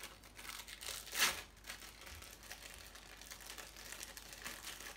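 Plastic film of individually wrapped cheese slices crinkling as the slices are peeled out of it by hand, loudest about a second in.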